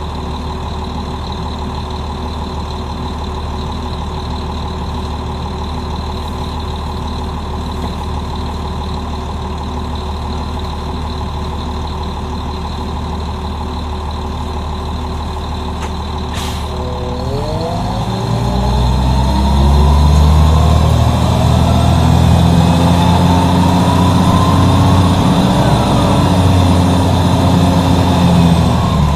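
Cummins M11E inline-six diesel of a 1996 NovaBUS RTS-06 transit bus idling steadily, with a short sharp sound about 16 seconds in. About 17 seconds in the engine revs climb and it gets louder as the bus accelerates through its Allison automatic transmission, then holds a steady higher pitch.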